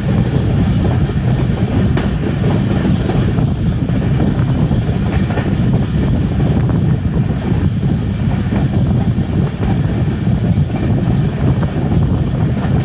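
Train running on the rails: a steady, loud rumble of wheels and carriages, with a faint high squeal coming and going.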